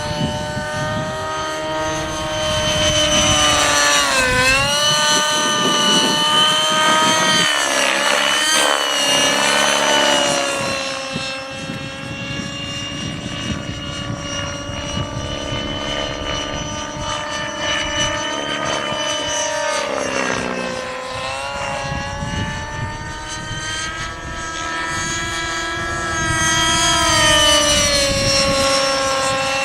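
Align 600N nitro RC helicopter in flight: its glow engine and rotors run steadily, with the pitch briefly sagging and recovering several times as the load changes.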